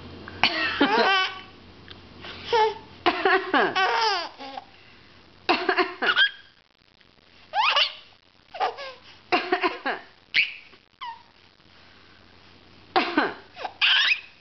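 A baby laughing in a string of short bouts, set off by a grandmother's play coughing.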